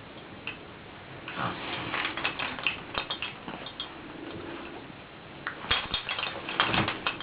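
Baby's rattles being banged on, giving quick clusters of rattling clicks and clinks in two spells, the second toward the end.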